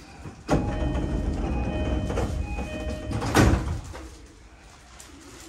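E233 series commuter train's electric sliding doors closing: a sudden start of movement, a few short chime tones while the doors travel, then the doors shut with one sharp thump about three seconds in.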